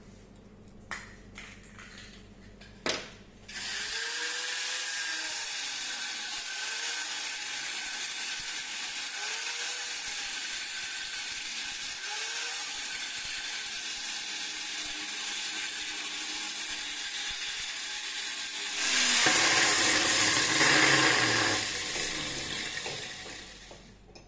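Bench grinder running steadily while a plastic gear-shift mechanism part is pressed against its wheel, grinding material away, after a few light handling clicks. The grinding grows louder for a few seconds near the end, then stops.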